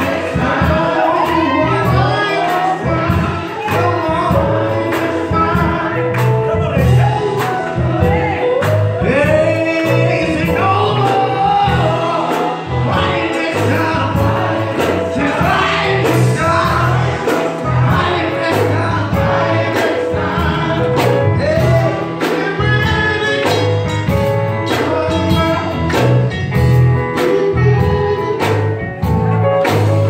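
Live gospel music: voices singing over a band of drum kit and guitar, with a steady drum beat.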